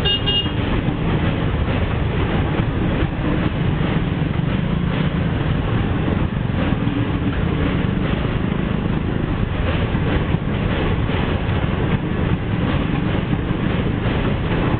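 Indian Railways express passenger coaches rolling past close by as the train departs: a steady rumble of wheels on the rails, with light clatter over the rail joints.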